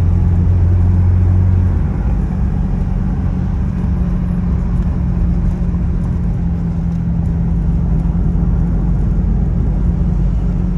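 Motor vehicle running: a steady low drone over road rumble, with a deeper hum that drops away about two seconds in.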